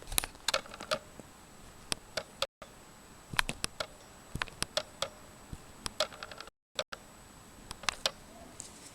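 Irregular light clicks and taps, a couple of dozen, scattered over a quiet room background, like small hard plastic parts being handled.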